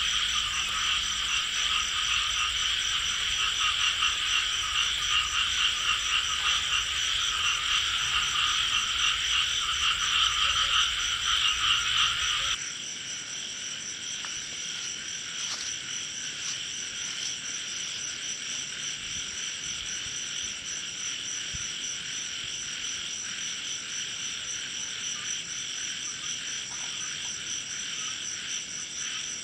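Frogs croaking in a dense, continuous chorus over a steady high-pitched buzz. About twelve seconds in the whole chorus drops suddenly in level and carries on more quietly.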